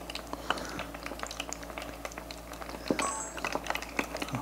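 Fugu (pufferfish) karaage deep-frying in hot oil in a small tabletop fryer: a steady sizzle thick with small crackles and pops. A brief high tone sounds about three seconds in.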